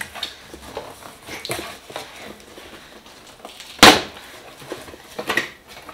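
Cardboard shipping box being torn open by hand: flaps pulled apart with rustling and tearing, and one loud sudden crack about four seconds in.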